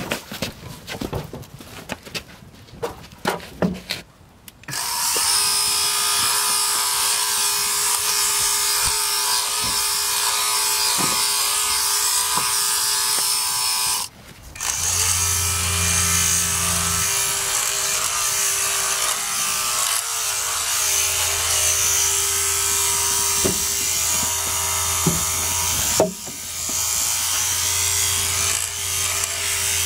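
Handypiece Pro battery-powered portable sheep clipper running steadily as it clips dags and crutch wool off a sheep. It starts up about five seconds in after a few knocks and clicks, cuts out briefly about halfway through, then runs again.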